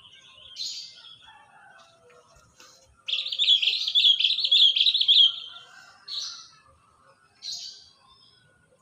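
Small bird calling: a few short, sharp chirps, and about three seconds in a loud, rapid warbling trill lasting about two seconds.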